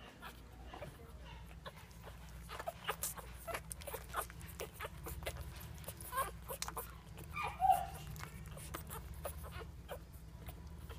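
One-week-old Boston bulldog puppies nursing: a run of soft, wet suckling clicks and smacks, with a few short puppy squeaks and whimpers, the loudest about two-thirds of the way in.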